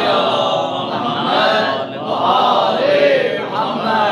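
Men's voices chanting an Arabic religious recitation, amplified through a microphone.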